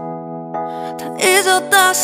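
Background music: a soft held chord, joined about a second in by a wavering melody line.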